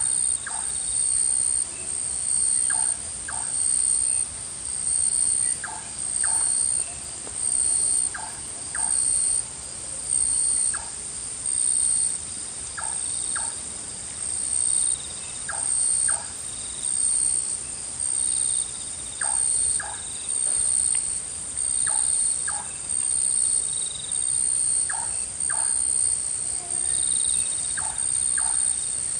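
Forest insects, crickets or similar, calling in a loud, high-pitched chorus that swells and fades about once a second. Short paired chirps from another animal come every two to three seconds.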